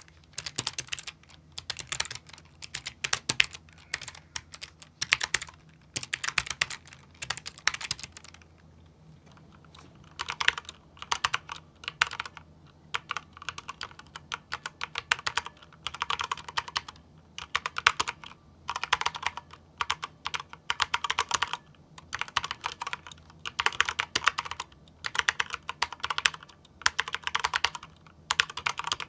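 Typing on a Razer DeathStalker V2 Pro low-profile keyboard with linear red optical switches: quick runs of keystrokes in bursts, with a short pause about a third of the way in. The keystrokes are quiet, with no click.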